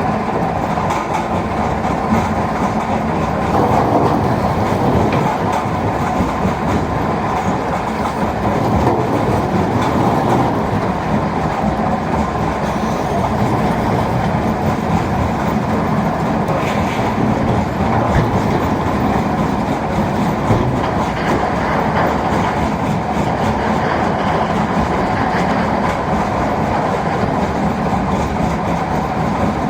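Steady, loud rumble and rattling clatter of heavy machinery at a stone-crushing site: a mobile stone crusher running as an excavator feeds it rocks.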